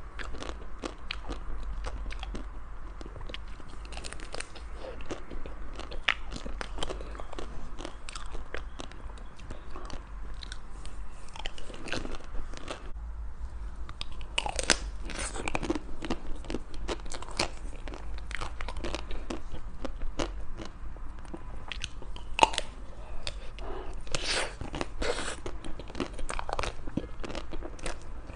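Close-miked eating of ice cream desserts: repeated crunchy bites and chewing, with many irregular sharp crunches that come thicker at times.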